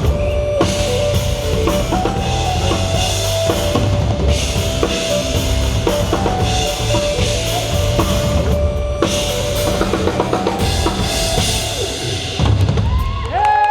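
Pop song played loud through a concert PA: a drum kit with bass drum and snare drives the music under sustained instrument notes, with no singing. The music cuts off just before the end.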